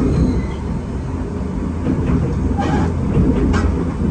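Enoshima Electric Railway electric train running along its track, heard from inside the car: a steady low rumble of wheels and running gear, with two short bursts of hiss about three seconds in.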